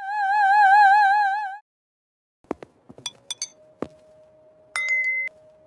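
A loud warbling high tone that stops after about a second and a half. Then a few sharp glass clinks and a steady ringing tone from glasses tapped with different amounts of water in them, with a higher, brighter ring coming in for about half a second near the end.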